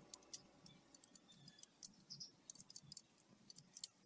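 Near silence broken by faint, scattered light clicks and ticks as a thin bamboo strip is pulled and scraped through the hand.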